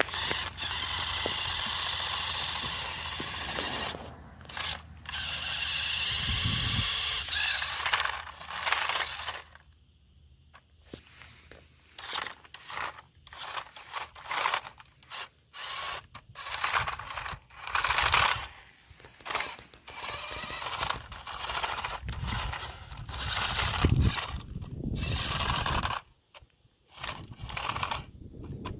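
Radio-controlled concrete mixer truck driving over rough ground. Its motor and gears whine in stop-start spurts, and its tyres scrape and crunch over dirt and rocks.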